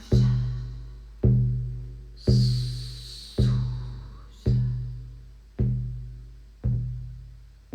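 Shamanic hand drum beaten in a slow, steady pulse, about one stroke a second, each deep boom ringing out and fading before the next. A brief hissing swish comes in about two seconds in.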